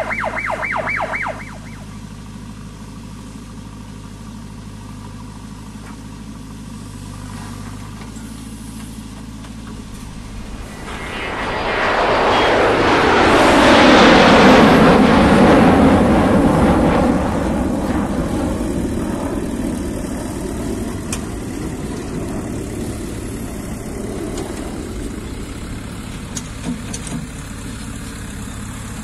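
JCB 3DX backhoe loader's diesel engine running steadily. It grows much louder for several seconds about halfway through as the backhoe bucket digs into the mud, then settles back. A rapid pulsing electronic beeping cuts off about a second and a half in.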